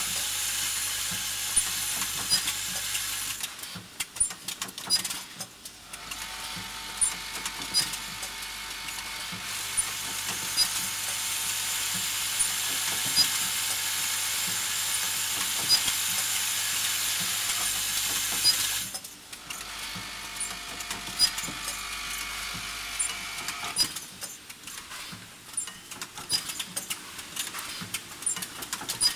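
Automatic single spot welding machine on a tin can line running: a steady high hiss with sharp clicks and clacks from its pneumatic mechanism at irregular intervals. The hiss drops away twice for a few seconds while the clacking goes on.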